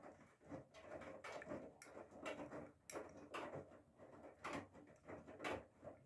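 Whirlpool FSCR90425 front-loading washing machine tumbling wet laundry during a cotton wash: water sloshing and splashing in the drum with irregular soft thumps as the clothes drop, stopping abruptly at the end as the drum pauses.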